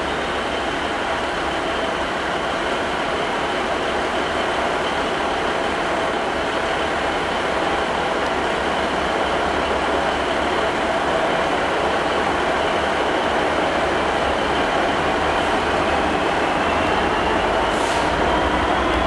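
Freightliner Class 66 diesel-electric locomotive, with its two-stroke V12 engine, running slowly as it approaches hauling empty flat wagons. It grows gradually louder, with a steady whine that rises in pitch near the end.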